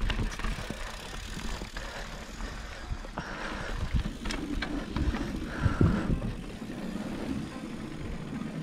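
Mountain bike rolling over a dirt singletrack and wooden boardwalk planks: a steady rumble of tyres and wind on the handlebar-mounted camera, with frequent rattling clicks and knocks from the bike over the bumps.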